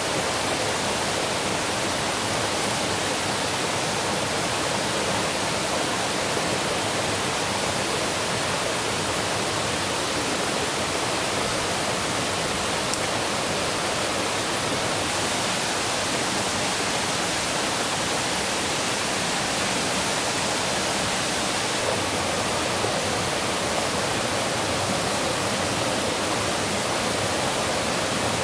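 Running water of a stream, a steady, even hiss.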